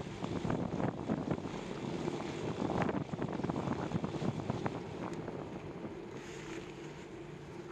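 Bicycle riding over asphalt: tyres rolling, a continuous stream of rapid small rattles and clicks from the bike, and wind on the bike-mounted microphone. The rattling eases a little near the end.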